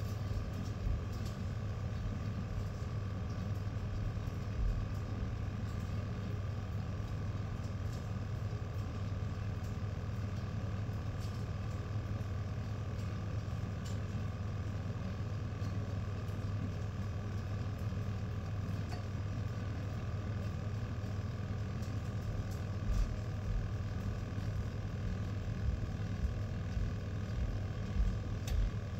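A steady low mechanical hum, like a running fan or appliance, with a few light knocks near the end.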